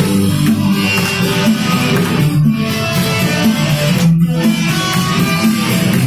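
Live rock band playing loudly, electric guitar over drums and keyboard.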